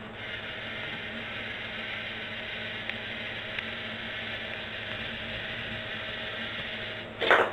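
LEGO Mindstorms NXT tribot's servo motors whirring steadily through their plastic gear trains as the robot moves, with two faint clicks. Near the end comes a single brief, loud knock.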